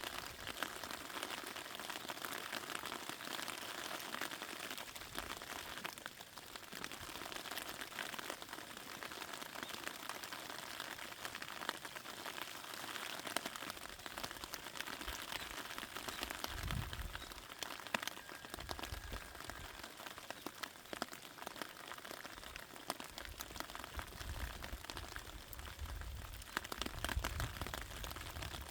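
Rain falling on raspberry plants: a steady patter with many separate drop ticks. Low rumbles come in about halfway through and again near the end.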